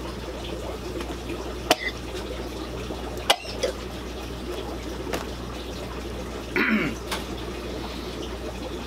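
Steady trickling and bubbling of water from a fish room's aquarium filters and aeration, over a low electrical hum. A couple of sharp clicks and a short sound from a person's voice come through it, the voice about two-thirds of the way in.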